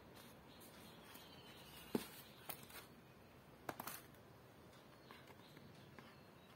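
Cardboard box handled and set down on a concrete floor: a sharp knock about two seconds in, then a few lighter taps and clicks a second and a half later, over faint background hiss.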